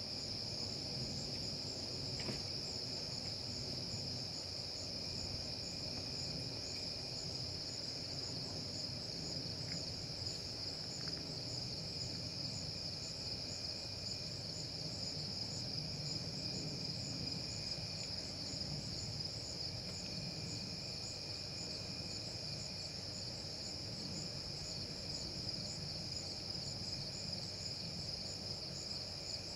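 Steady chorus of crickets and other night insects: a continuous high trill, with a second, fainter trill that comes and goes.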